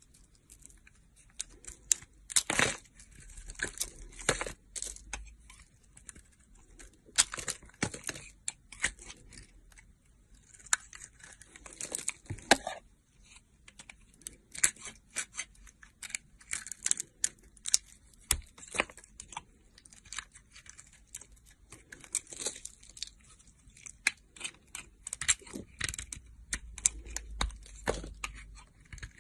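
A metal blade shaving and cutting into a bar of soap: irregular crisp scrapes and crackles, in short spells with brief pauses between.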